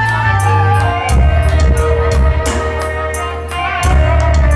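Instrumental passage of live band music: drums and cymbals striking a regular beat over deep bass notes and held melodic tones.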